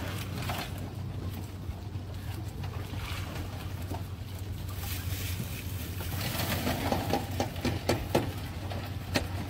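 A boat's outboard motor running steadily underneath. From about six seconds in, a quick rattle of clicks and knocks as a crawfish trap is shaken out onto the aluminium sorting table, with the crawfish spilling onto the metal.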